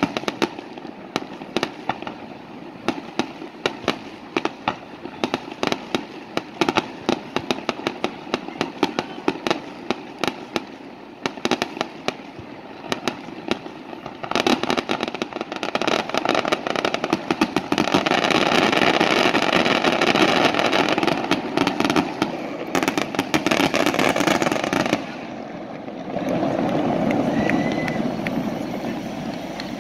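Fireworks display: rapid cracks and pops from bursting shells. About fourteen seconds in, this builds into a dense, continuous barrage of crackling for about ten seconds, which cuts off suddenly. A softer, steady rush follows.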